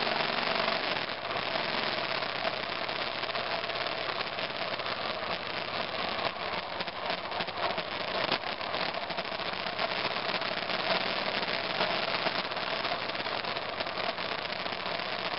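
2002 BMW F 650 GS Dakar's single-cylinder engine running as the motorcycle rides a rough forest trail, heard from a camera on the handlebar mirror, with frequent clicks and rattles from the bumps.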